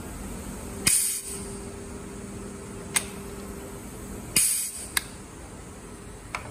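Pneumatic spring-return quarter-turn actuator on a 40 mm butterfly valve cycling: about a second in, the solenoid valve clicks and compressed air hisses in as the valve opens, and a steady hum follows while the coil is energized. About three and a half seconds later another click and a short burst of exhausting air as power is cut and the spring closes the valve on its own, with single sharp clicks in between and after.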